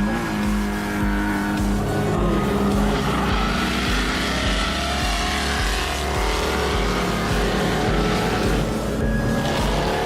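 Drift cars' engines revving and tyres squealing as the cars slide past, under background music with a steady beat.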